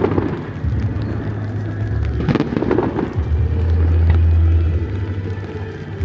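Aerial fireworks bursting: a few sharp bangs, two close together about two seconds in, over a steady low rumble.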